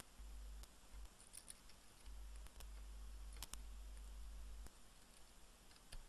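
Faint, sparse clicks of a metal soldering-iron tip and tweezers on a motherboard while a broken SATA connector pin is worked out of its solder hole, over a low hum. About six clicks, the sharpest a quick pair about three and a half seconds in.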